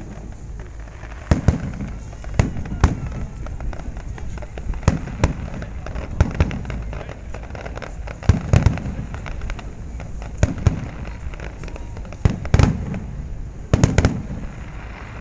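Aerial firework shells bursting: about fifteen sharp bangs at uneven intervals, some in quick pairs, several followed by a brief low rumble.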